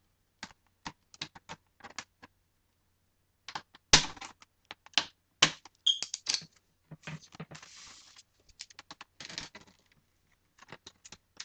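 Plastic clicks and snaps of a thin plastic pry tool working along a Toshiba Satellite L555D laptop's screen bezel, the bezel's clips popping loose, with a brief scrape about eight seconds in. The sharpest snaps come about four and five and a half seconds in.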